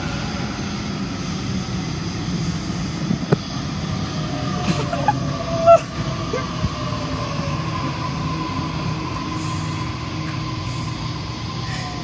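Waratah electric train pulling into the platform. Its motor whine slowly falls in pitch as it slows, with a few brief squeaks and clicks, the loudest a short squeal about halfway through.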